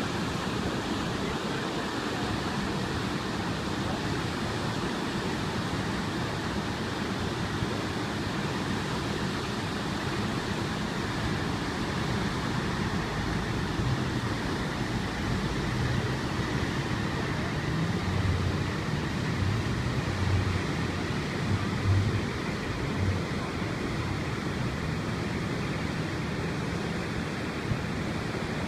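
Floodwater spilling through open dam floodgates and churning in the swollen river below: a steady rush of white water. A few low rumbling bumps come and go partway through.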